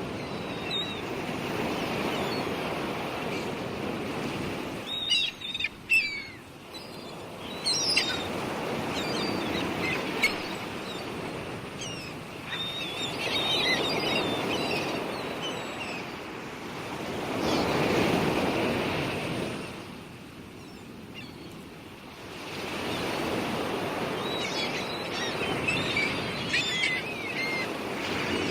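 Sea surf washing in slow swells that rise and fall every few seconds, with birds chirping now and then over it.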